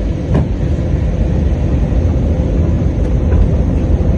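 Airliner cabin noise on the approach for landing: a steady low rumble of engines and rushing air, with a brief knock about a third of a second in.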